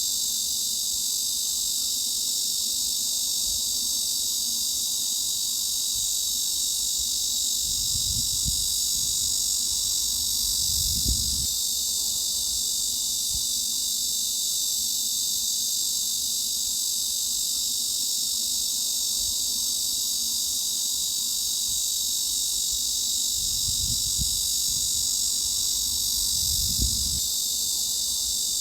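Cicada chorus: a steady, unbroken high-pitched buzzing drone. Faint low thumps come in two pairs, in the middle and near the end.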